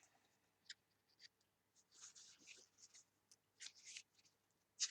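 Faint rustling of paper and book pages being handled and turned over, in a handful of short rustles.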